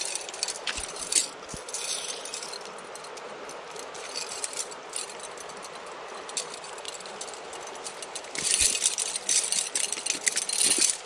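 A fish stringer rattling and clinking as it is handled and a trout is put on it, with scattered clicks and a louder burst of rattling from about eight and a half seconds until near the end. A steady rush of creek water runs underneath.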